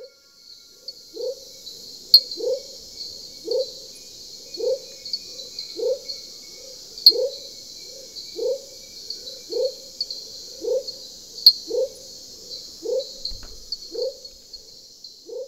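Tropical night animal chorus: a steady high buzzing chorus, with a low call repeated about once every 1.2 seconds and fainter calls between, and three sharp clicks.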